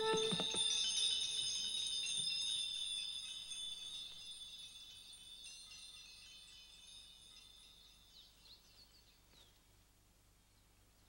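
Shimmering chimes struck at the start, ringing out and slowly fading away over several seconds. Faint bird chirps come in near the end.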